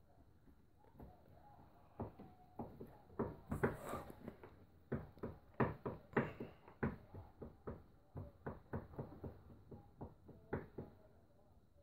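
Kitchen knife chopping on a cutting board in a run of uneven strokes, about two or three a second, mincing food down to rice-grain size.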